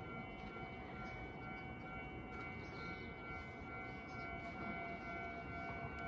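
Railway station platform ambience: a steady high-pitched tone holds over a low background hum, with no train passing yet.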